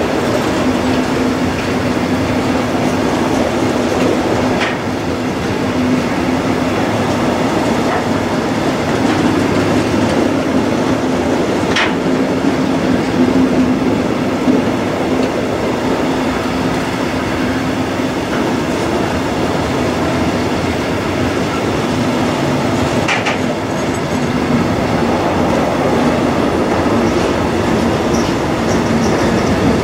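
Freight train of container and tank-container wagons rolling past with a steady rumble of wheels on rail. A few short, high wheel squeals are heard.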